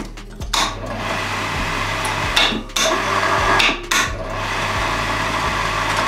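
Electric wire rope hoist motor running, winding its steel cable on the drum. It starts about half a second in, then stops and restarts briefly twice, around two and a half and four seconds in.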